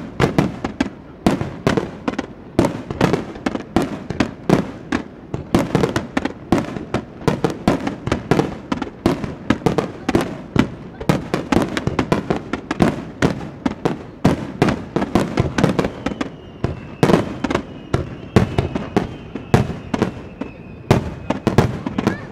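Fireworks starmine barrage: sharp shell bursts firing two or three a second without a break. A faint high whistle runs through the last few seconds, and the barrage stops abruptly at the end.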